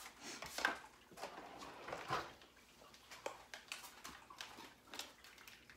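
A spoon scraping and tapping against the pot and containers as soupy chili is ladled out: irregular clinks and wet scrapes.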